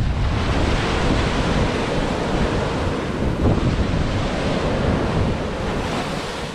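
Surf breaking and washing up the beach at the water's edge, a steady rushing wash, with wind rumbling on the microphone.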